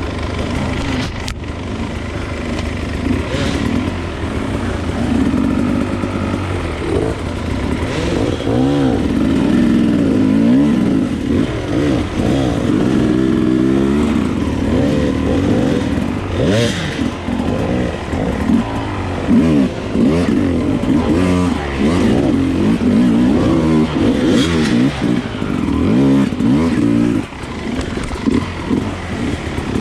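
Enduro dirt bike engine revving up and down over and over as the rider works the throttle on a rough trail, with a few sharp knocks from the bike over the terrain.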